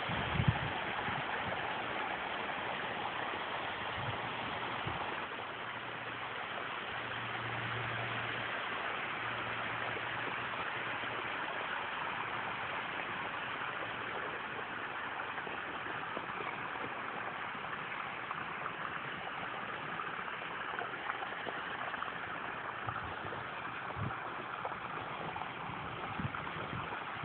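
Water rushing and splashing steadily over a built rock waterfall, fed at full flow by a 13,500 gph pump through two 3-inch supply lines.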